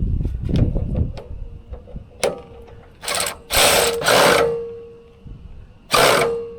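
Metal tool work on a sawmill bed being leveled: a fast mechanical rattle for about the first second, then a sharp click, three loud scraping clanks, and a piece of metal left ringing with a steady tone after each.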